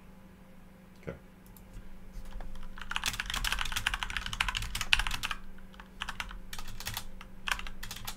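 Typing on a computer keyboard: one click about a second in, a fast run of keystrokes for a couple of seconds in the middle, then a few scattered keys near the end.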